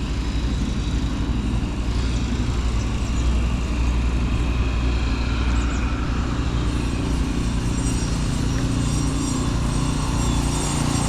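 A road vehicle travelling at steady speed: a constant low engine drone under an even rush of wind and road noise.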